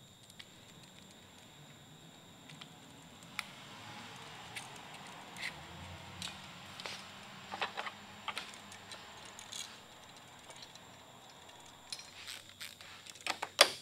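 Small metallic clicks and rattles of a worm-drive hose clamp being handled and worked around a trolling-motor transducer, with a quick cluster of louder clicks near the end.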